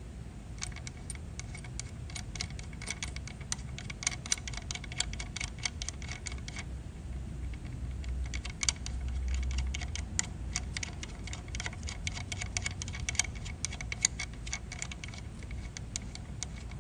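Steel bolt and washer turned by hand in a freshly installed Helicoil insert in an aluminum brake caliper, making a quick run of light ticks and clicks as it threads in. The ticking breaks off briefly about seven seconds in, when the bolt is seated, then picks up again as it is turned back out, a test fit of the repaired thread.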